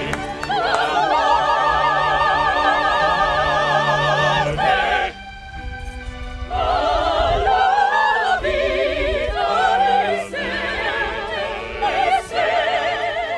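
Operatic singing from the cast: long held notes with strong vibrato, with a brief quieter dip about five seconds in before the singing resumes.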